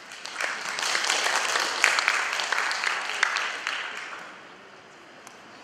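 Audience applauding, building quickly and dying away after about four seconds.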